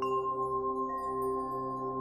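Ambient background music of sustained, steady tones. A new high note comes in right at the start and another, higher still, about a second in.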